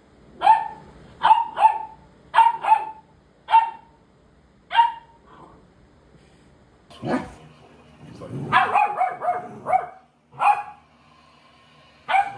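A puppy barking in short, high, sharp barks, about seven in the first five seconds. After a pause, more dog barks come close together from about seven to ten seconds in, with one more near the end.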